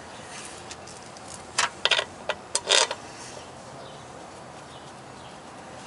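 A quick run of about five clinks and clanks over a little more than a second, as metal tools or engine parts are handled during timing-chain work.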